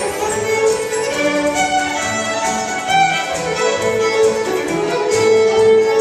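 Solo fiddle playing a reel, with a chamber orchestra's bowed strings, cellos among them, accompanying.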